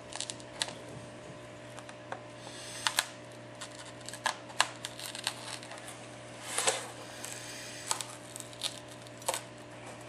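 Irregular small clicks and crackles as a cracked iPad 4 glass digitizer is pried loose from its adhesive, with one longer crackle about six and a half seconds in.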